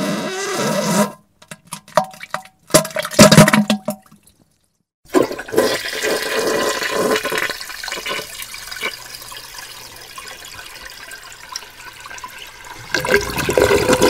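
Wet diarrhea sound effects: a few short, loud sputtering bursts in the first four seconds, then a toilet flushing for about eight seconds, fading away, with another loud burst near the end.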